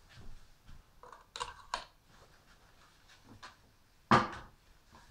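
Scattered knocks and clatters of objects being handled, a couple of light ones early and a louder one about four seconds in.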